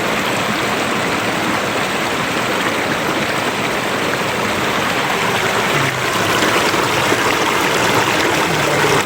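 River water flowing, a steady, even rushing of the current.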